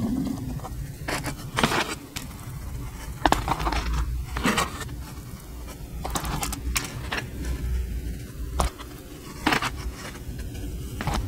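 Hands handling and setting out doughnuts on a table: scattered soft scrapes, rustles and light taps over a steady low rumble.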